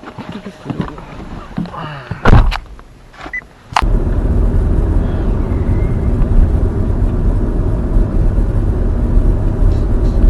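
A few sharp clicks and a loud thump in the car's cabin, then, about four seconds in, a sudden start of steady road and wind noise from the Nissan Leaf electric car under way, with no engine sound.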